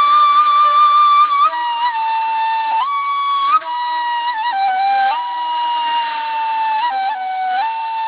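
Solo flute playing a slow melody of long held notes joined by short slides and ornaments.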